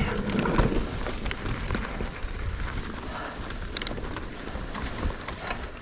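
Mountain bike, a Specialized Stumpjumper, rolling along a dirt trail: tyre noise and small knocks and rattles from the bike, with wind on the microphone. A few brief sharp clicks about four seconds in.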